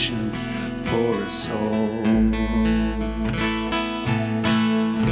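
Live instrumental outro: strummed acoustic guitar over plucked upright bass, the guitar strokes coming at an even rhythm.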